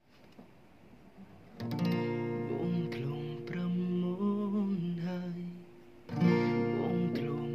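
Acoustic guitar with a capo, played as an intro: a chord is strummed about a second and a half in and rings on under a moving melody line. After a short dip just before six seconds, a second chord is strummed.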